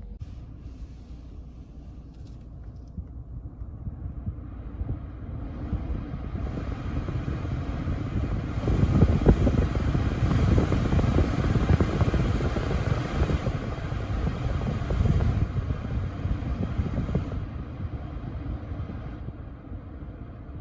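BMW F11 climate-control blower fan stepped up through its speeds and back down, a rush of air with a low rattling rumble that grows loudest at the top speeds: the abnormal noise from the blower.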